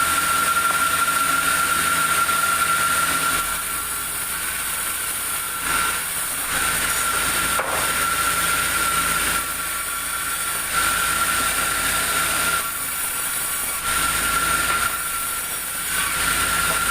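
Sawmill saw running with a steady high whine and a hiss. The noise swells and drops back every few seconds as the blade cuts the log.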